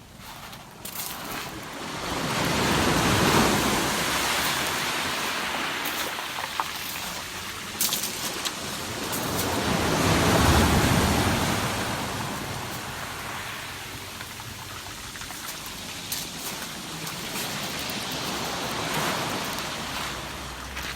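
Ocean surf breaking and washing over a pebble beach, surging loudest about three seconds in and again about ten seconds in, with a few short clicks of stones knocking.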